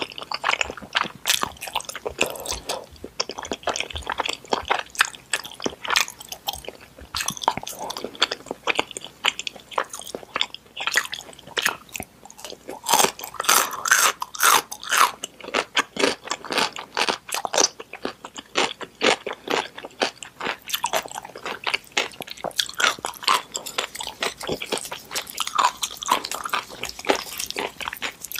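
Close-miked chewing of a mouthful of noodles: a continuous run of small wet smacks and clicks from the mouth.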